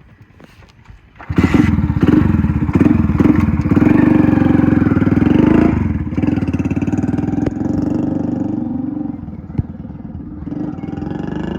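Hero Honda CD 100 SS single-cylinder four-stroke engine breathing through a fitted Yamaha RX 100 silencer. It comes in suddenly and loud about a second in and runs with a rapid beat of exhaust pulses, eases off a little partway through, then rises again near the end.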